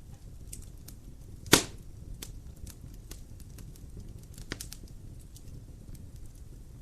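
Wood fire crackling in a fireplace: a steady low rumble of flames with scattered small snaps, one loud pop about a second and a half in and a smaller one about three seconds later.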